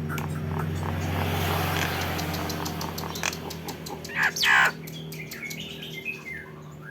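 Nias hill myna giving a loud, sharp call about four seconds in, followed by shorter gliding whistles, in the tengkek buto (stork-billed kingfisher) style it is kept for. A steady low hum runs underneath.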